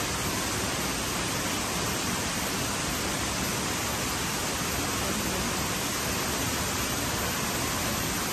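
Steady, unbroken rush of water running through river rapids.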